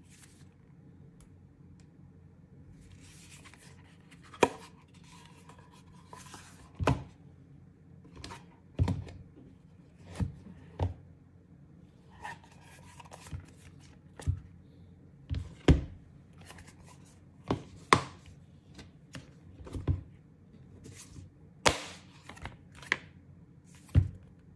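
An iPad mini in an ESR Rebound Hybrid case being handled: its folding cover is flapped open and shut and folded into a stand, and the tablet is set down on the desk. This gives a dozen or more sharp knocks and taps at irregular intervals, one every second or two, with a few soft rubbing sounds between them.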